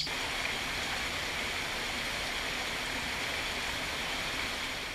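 Steady rush of running stream water, an even noise that stays unchanged throughout.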